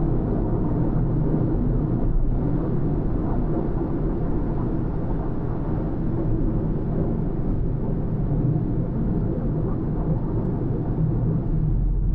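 A car driving at a steady pace: continuous engine and tyre rumble on the road, with no sudden sounds.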